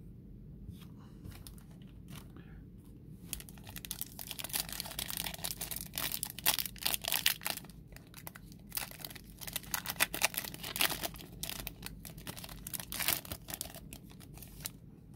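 Foil wrapper of a Panini Select UFC trading-card pack being torn open and crinkled by hand. A dense run of crackles starts about three seconds in and eases off near the end.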